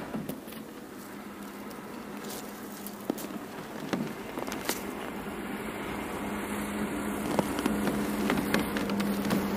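A burbot setline being hauled up by hand through a hole in river ice, with rustling of gloves and heavy winter clothing and scattered small clicks and scrapes. A steady low hum runs underneath from about a second and a half in, and the sound grows louder toward the end.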